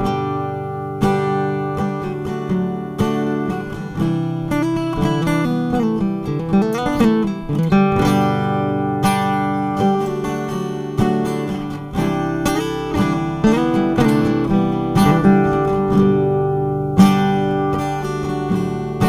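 Background music: acoustic guitar strummed and picked, with a steady rhythm.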